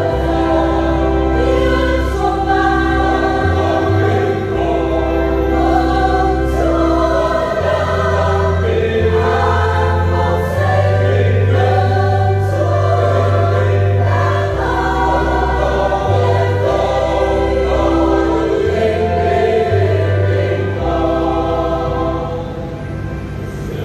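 Catholic church choir singing an Easter hymn in Vietnamese, over an accompaniment of long held bass notes that change every second or two.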